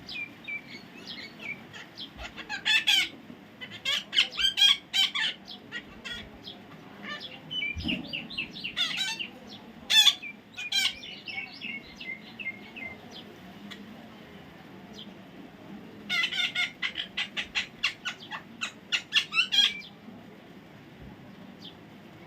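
Parrot calling: several bouts of quick, repeated high squawks, with softer chirps in between.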